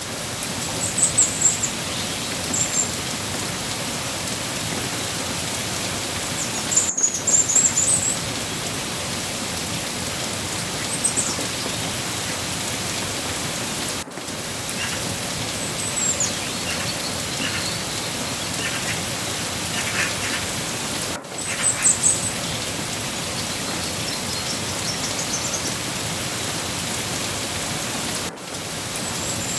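Steady rain falling, with short high chirps now and then, loudest about a second in, around seven to eight seconds and around twenty-two seconds. The sound drops out for an instant about every seven seconds, as at the seam of a looped recording.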